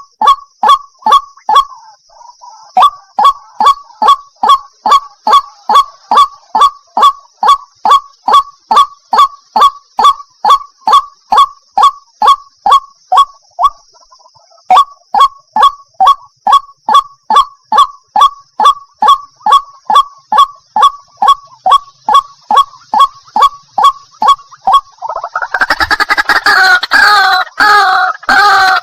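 White-breasted waterhen calling: a long run of short, honking notes at about three a second, with brief breaks about two and fourteen seconds in. Near the end it turns into a louder, denser run of overlapping calls.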